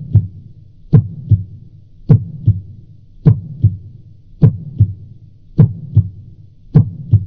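A slow, steady heartbeat: loud paired lub-dub thuds, the first of each pair stronger, one pair a little more than a second apart, seven times over.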